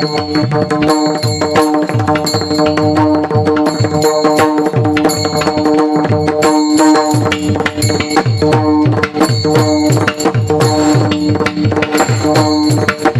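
Devotional kirtan music without singing: held reed-organ tones, most likely a harmonium, under fast tabla strokes whose deep bass notes slide down in pitch.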